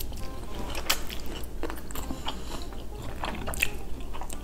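Close-up chewing of Samyang carbonara noodles, with many scattered sharp clicks and smacks.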